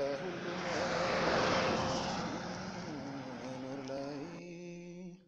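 A long held pitched tone that shifts pitch slightly a few seconds in, with a rushing noise that swells up in the first two seconds and fades. It cuts off suddenly near the end.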